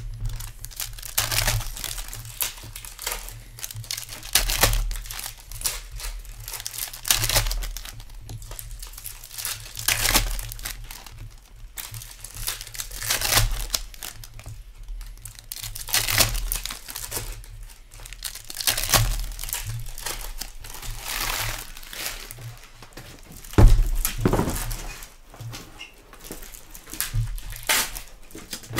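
Foil trading-card pack wrappers being torn open and crinkled in the hands, in irregular bursts, with one loud thump near the end.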